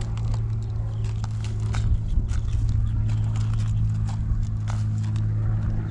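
A steady low motor drone runs throughout, with scattered light clicks and knocks of close handling over it.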